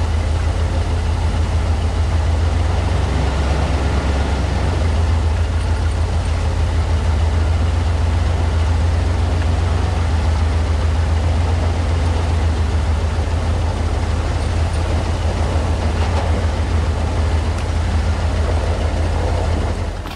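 Off-road vehicle's engine running steadily with a heavy low drone while driving slowly along a snowy trail.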